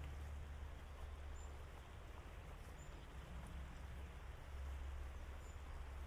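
Faint, steady rush of river water with a low rumble under it, and a few brief, high chirps from small birds.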